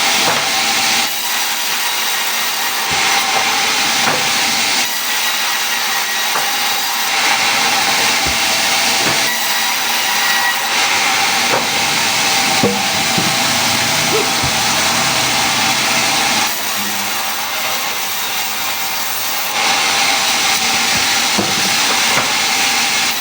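Electric woodworking machine running steadily while cutting wood, a constant whine over a loud hiss, its pitch and loudness shifting abruptly every few seconds, with a few light knocks in the middle.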